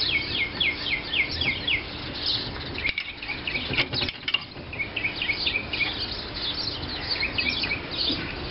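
Songbirds chirping, a quick run of repeated down-slurred notes over and over, with a couple of short clicks about three and four seconds in.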